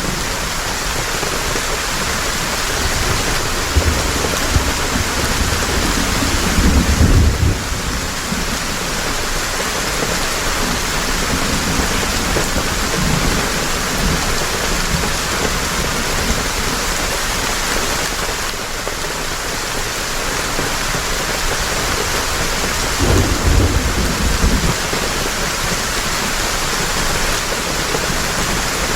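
Heavy rain falling steadily in a dense hiss. Low rumbles of thunder swell up twice, once about four seconds in, lasting a few seconds, and again near the end.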